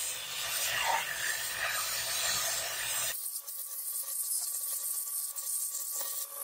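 Belt grinder grinding a steel blade: a steady rasping hiss of the abrasive belt on metal. About three seconds in the sound abruptly turns thinner, losing its low end.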